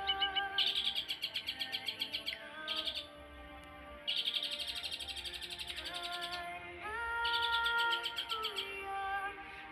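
Long-tailed shrike (cendet) singing: four bursts of fast, rapidly repeated high notes, the longest about two seconds, over soft background music of held notes.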